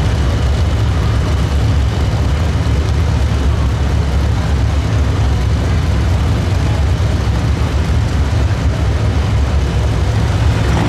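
Turbocharged diesel pickup truck engine running loud and steady at high revs, typical of a truck pulling the sled. A thin high whistle rides over it for the first few seconds.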